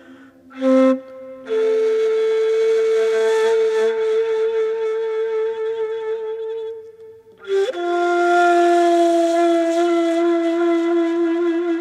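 Ney, the Turkish end-blown reed flute, playing slow, breathy long-held notes: a short note, then one long steady note, a brief break, and another long, slightly lower note entered with a quick slide.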